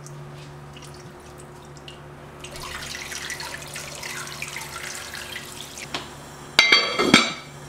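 Liquid poured into an enamelled cast-iron pot of beef: first a thin stream of braising sauce, then from about two and a half seconds in a fuller pour of water splashing in for a few seconds. Near the end comes a loud, ringing clank.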